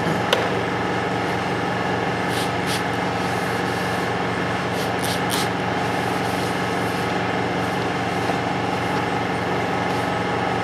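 Palm sander running steadily, wet sanding a plastic headlight lens with 400-grit paper. A few short hisses sound over it twice, a couple of seconds in and about five seconds in.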